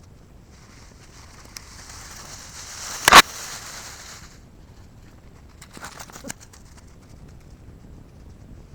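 A single loud, sharp crack about three seconds in, over a steady hiss, followed around six seconds by a few lighter clicks.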